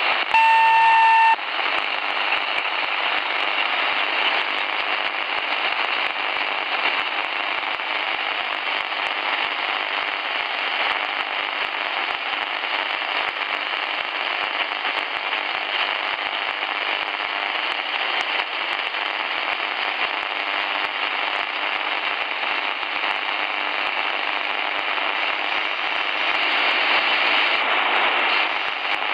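Tecsun PL-450 portable shortwave radio tuned near 2130 kHz, giving a steady hiss of band noise with scattered crackles and no voice traffic. A steady whistling tone with overtones sounds for about the first second and a half, then stops.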